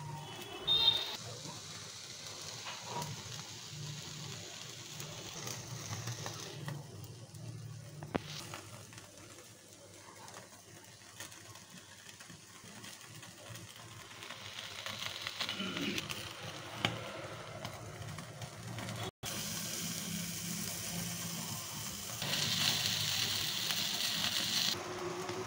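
Sizzling and hissing from a whole marinated chicken being charred on metal skewers directly over a gas stove burner flame, as juices drip into the fire. It comes and goes in stretches and is strongest near the end, with a sharp clink about a second in.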